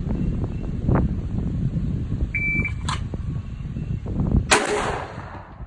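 Wind rumbling on the microphone. A little after two seconds in, a shot timer gives its short start beep, followed by a sharp crack, and about four and a half seconds in comes a louder, longer burst of noise.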